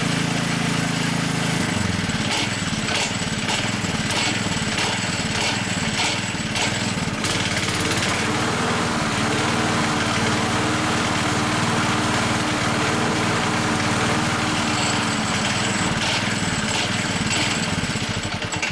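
Hayter 479 rotary lawn mower's petrol engine running, with a repeated knocking from the worn blade-brake disc slapping back and forth. The engine note changes about two seconds in.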